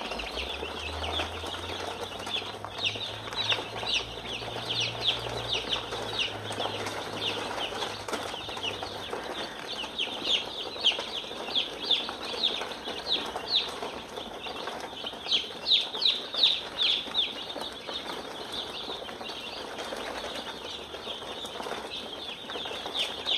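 A brooder full of chicks peeping: many short, high peeps that slide downward in pitch, overlapping in a continuous chorus. The peeping grows louder and denser for stretches partway through.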